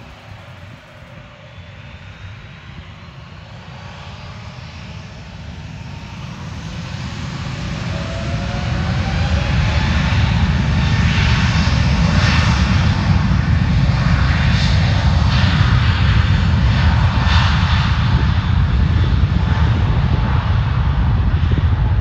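Airbus A321 jet engines spooling up to takeoff thrust: a whine rising in pitch while the sound swells over the first ten seconds or so, then a loud, steady roar as the airliner rolls down the runway on its takeoff run.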